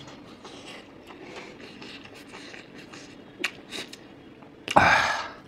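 Person chewing food with a few small mouth clicks, then a sharp, loud breath near the end, a reaction to the heat of chili paste.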